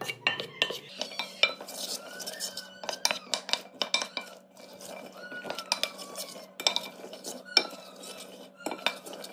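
Wooden spoon stirring cooked chickpeas in oil and salt in a glass bowl: irregular clicks and knocks of the spoon and chickpeas against the glass.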